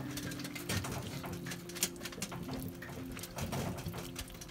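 Ladle scooping and pouring pan juices over a roast in an enamelled cast-iron Dutch oven: liquid splashing and dripping with light clicks and taps. A steady low hum runs underneath.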